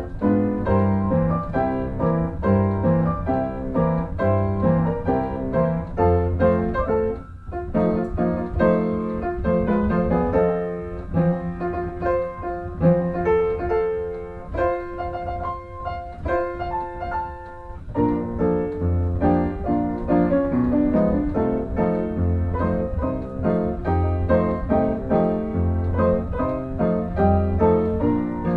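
Background instrumental music led by piano, with a pulsing bass line.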